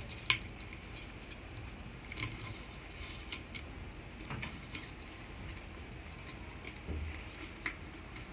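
Light, scattered clicks and taps of a hard-plastic water bottle and its handle strap being handled and fitted at the bottle's neck, with the sharpest click just after the start.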